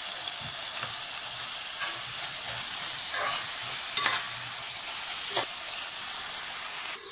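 Spinach and boiled potatoes sizzling as they fry in oil in a pan, while a steel spoon stirs and mashes them. The spoon knocks against the pan a couple of times, about four and five seconds in.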